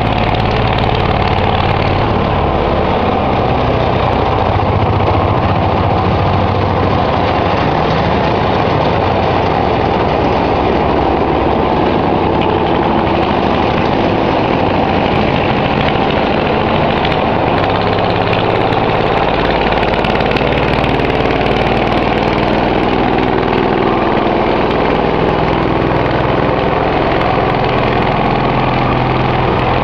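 Engine of a Nimbus Junior 2 site dumper (Motorjapaner) running steadily while it pushes snow with a front plow blade. Its note changes about two-thirds of the way through as the engine speed shifts.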